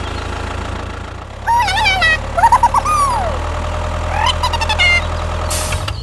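Tractor engine idling with a steady low hum. High, squeaky warbling voice-like sounds come in over it about a second and a half in and again near four seconds, and there is a short hiss just before the end.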